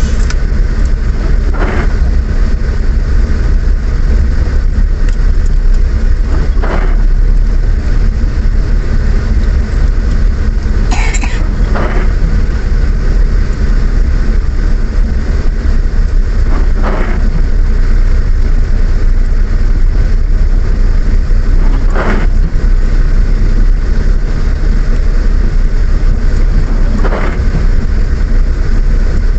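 Car driving in the rain, heard from inside: a loud, steady low rumble of engine and road. A short sound repeats about every five seconds.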